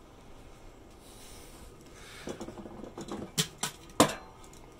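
Metal clinks and knocks from handling the Big Green Egg's cooking grate. They start about two seconds in, and the sharpest knock comes about four seconds in.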